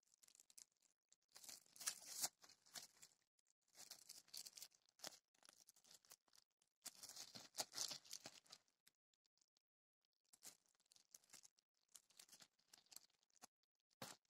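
Clear plastic wrapping crinkling in irregular bursts as it is handled, with one brief sharp crackle near the end.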